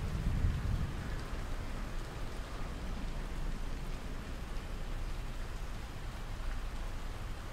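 Steady rain falling, an even hiss, with a low rumble fading out in the first second.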